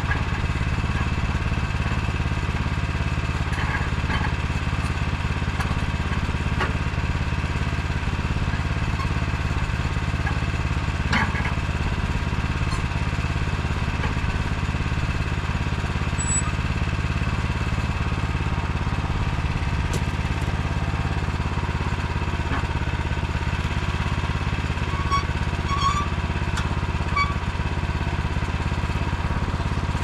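Small engine idling steadily with an even hum, with a couple of faint knocks.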